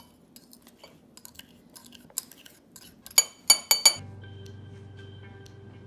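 A metal measuring spoon tapping and clinking against a drinking glass as brown sugar is knocked into the coffee, with a few loud ringing clinks about three seconds in. From about four seconds, steady background music takes over.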